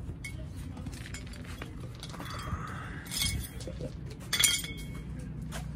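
Sweeping with a stick broom and a dustpan on a concrete path: a soft swish, then two sharp clinks about three and four and a half seconds in, the second louder.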